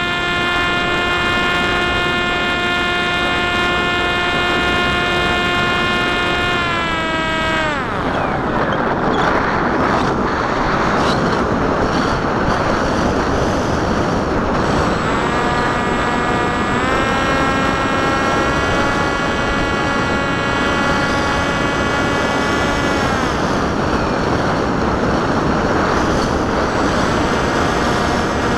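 Onboard sound of a Popwing foam flying wing in flight: its electric motor and propeller whine at a steady pitch, then the throttle is cut about seven seconds in and the pitch slides down and away, leaving the rush of wind over the airframe. The motor spools back up in steps about halfway through, cuts out again, and comes back on near the end.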